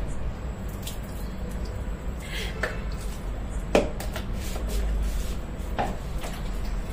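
A few light knocks and clatters of a plastic mug and bucket being handled while water is scooped, the sharpest about four seconds in, over a steady low hum.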